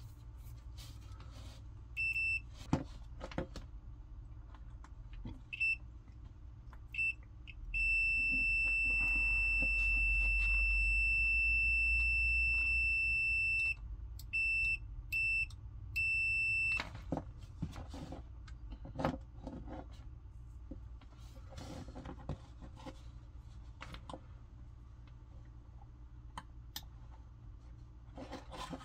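A digital multimeter's continuity beeper sounding while an Instant Pot's contact switch is tested: three short beeps, one long beep of about six seconds, then three more short beeps. Each beep marks the switch contacts closing and conducting. Faint clicks of the switch and test leads being handled come in between.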